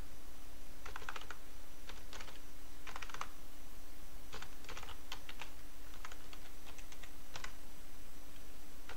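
Computer keyboard keystrokes in short irregular clusters as a shell command is typed, over a faint steady hum.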